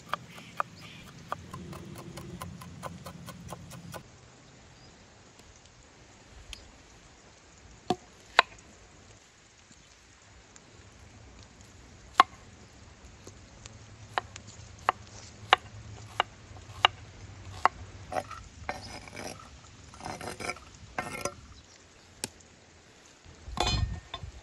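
Chef's knife on a wooden cutting board: a fast run of chopping through walnuts at the start, then scattered single knocks and cuts as an onion is cut, with short scraping spells, and a heavy thud near the end.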